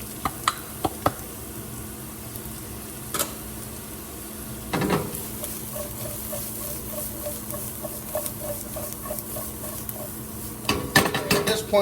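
Garlic, onions and carrots sizzling steadily in hot sesame oil in a pan, with a utensil clicking and knocking against the pan as they are stirred.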